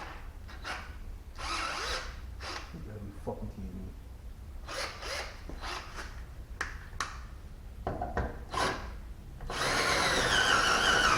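Light clicks and metal rattles of hand work, then about nine and a half seconds in a cordless drill starts and runs loudly with a wavering, sagging whine as its battery runs flat.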